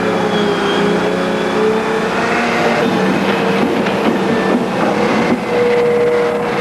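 Hydraulic excavator running steadily as it digs a foundation hole, its engine and hydraulics making a continuous din with a steady tone.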